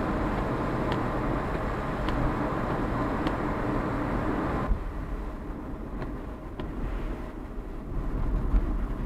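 Car driving on a wet highway, heard from inside the cabin: steady tyre and road noise with a hiss from the wet surface. The hiss drops away sharply about halfway through, leaving a lower rumble.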